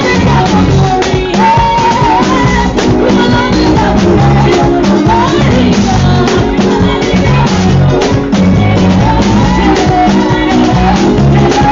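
Loud music with a steady drum beat, a low bass line and a wavering melody line on top.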